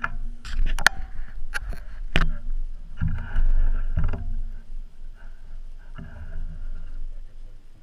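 A quick run of sharp cracks and knocks in the first two seconds, then a few duller thumps over a low rumble, as wood and insulation debris from a Tannerite-blown deer stand comes down. The sound is muffled by the GoPro's waterproof housing.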